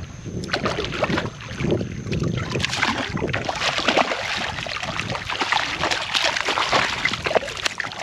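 A hooked fish thrashing at the surface beside a kayak, a dense run of splashes that thickens about two and a half seconds in.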